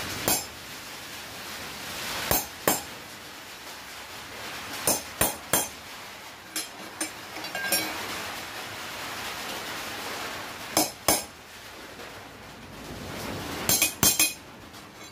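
Hammer tapping a cold chisel against a steel bar on an anvil to cut small layout marks at the bend points: sharp, ringing metallic clinks in small groups of two or three, with pauses between the groups.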